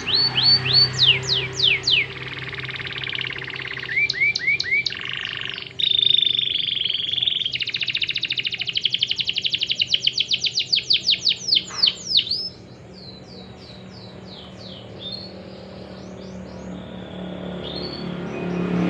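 Domestic canary singing a long, varied song: fast trills of rapidly repeated notes, held high whistles and quick downward sweeps. The song drops to quieter, sparser phrases about two-thirds of the way through.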